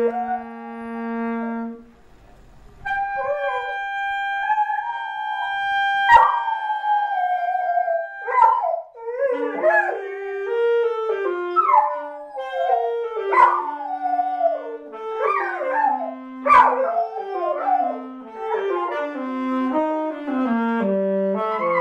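A saxophone plays a slow tune of held notes stepping downward, with a short break about two seconds in. A young golden retriever howls along in long wavering glides that rise and fall around the notes, with a few sharp yips breaking in.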